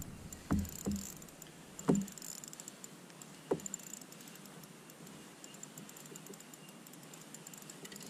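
A few sharp knocks and clicks of fishing tackle being handled in a kayak, the loudest about two seconds in, followed by faint fine ticking.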